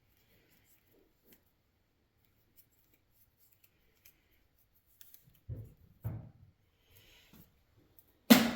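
Romex electrical cable being worked through a small hand wire stripper, the blade cutting and scraping along the outer sheathing. It opens with faint scattered ticks, turns to a few short rasping strokes about halfway through, and ends in a loud, sharp knock.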